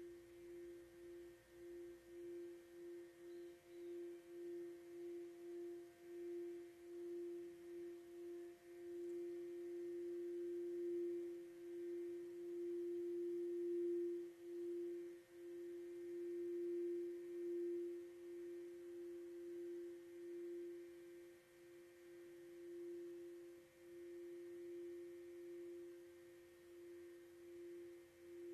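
A sound-healing instrument holding a single pure, mid-pitched note, sustained with a pulsing waver. It swells louder around the middle and eases back toward the end.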